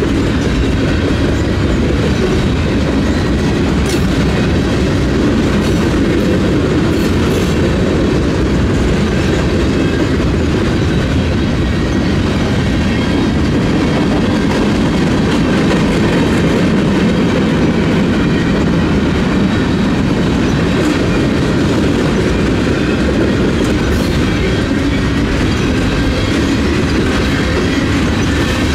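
Union Pacific freight train rolling past: a loud, steady rumble of wheels on the rails, with a few faint brief high clicks.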